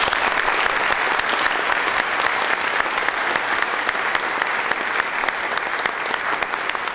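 An audience in a large hall applauding steadily; the clapping thins out near the end.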